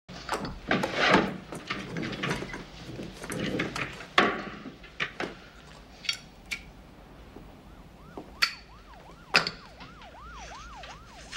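Faint siren wailing in a fast up-and-down yelp, about three swoops a second, from about eight seconds in. Before it comes a stretch of rustling with several sharp clicks and knocks of someone moving about.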